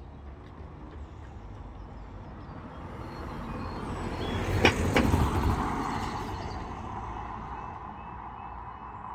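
A road vehicle drives past, swelling to its loudest about five seconds in and then fading away. Two sharp knocks come close together at the loudest moment.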